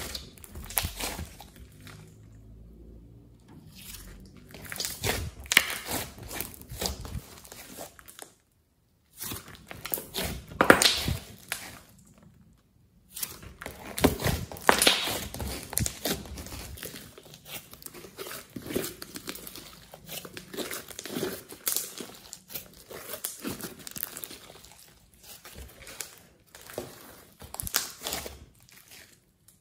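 Hands squishing, stretching and kneading thick glossy slime mixed with clay, giving irregular wet crackles, squelches and pops of trapped air. The sound stops briefly a few times.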